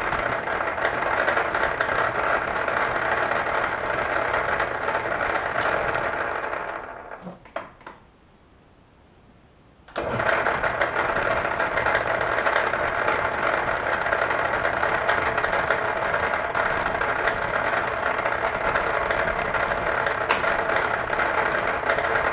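Metal lathe running with a steady whir and gear rattle; it is switched off and spins down about six to seven seconds in, then is restarted suddenly about ten seconds in and runs steadily again.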